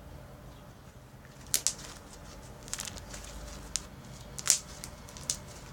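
Slime being squeezed and stretched by hand, giving scattered sharp crackles and pops, about half a dozen over a few seconds.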